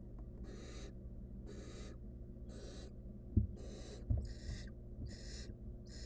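Barn owl nestlings giving hissing begging calls, short rasping hisses about once a second that come faster from about four seconds in as a second bird joins. Two dull knocks about halfway through, the loudest sounds, from the owlets moving on the wooden nest-box floor, over a steady low hum.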